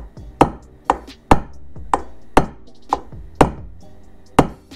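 Hammer blows peening the heads of Torx bearing-keeper screws in a Yamaha YZ426F crankcase: about nine sharp, ringing metal strikes, roughly two a second. The blows roll the edge of each screw head into the case so the screws cannot back out with vibration.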